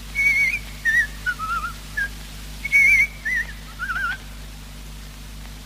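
A man whistling a tune in short warbling, trilled phrases, stopping about four seconds in.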